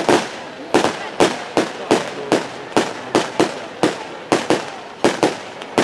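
Fireworks display: a rapid, uneven run of sharp bangs from bursting fireworks, about two to three a second, each followed by a short echo.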